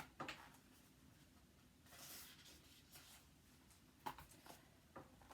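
Faint paper rustling with a few light taps, a picture book's page being handled and turned.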